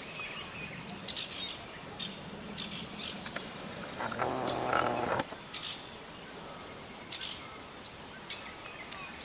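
Steady high-pitched evening insect chorus of crickets, with a few short bird chirps. About four seconds in, a low, drawn-out call lasts about a second.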